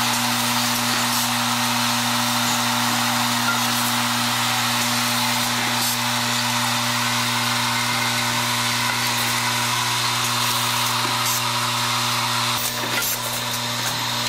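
Automated assembly machinery running steadily: the electromagnetic buzz of a vibratory bowl feeder over a continuous hiss and rattle of small plastic parts feeding along its tracks.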